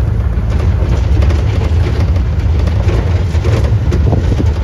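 Open safari game-drive vehicle driving along a rough dirt track: a steady low rumble of engine and road noise, with small irregular rattles and knocks.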